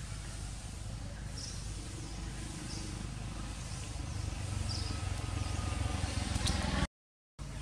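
Outdoor ambience: a steady low rumble, a little stronger in the second half, with faint high chirps repeating every second or so. The sound cuts out completely for about half a second near the end.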